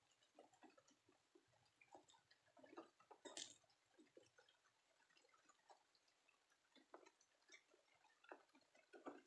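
Near silence with faint, scattered ticks and taps and one sharper click about three and a half seconds in.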